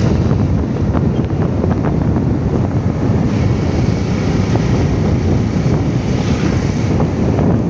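Wind buffeting the microphone while riding along a road: a loud, steady low rumble, with the riding vehicle's noise mixed in.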